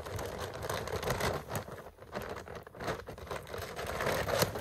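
A large plastic dog food bag rustling and crinkling as it is handled, with scattered small clicks and crackles.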